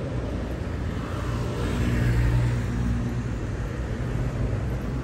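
Street traffic: a motor vehicle drives past, growing louder and fading, loudest about two seconds in, over a steady low rumble.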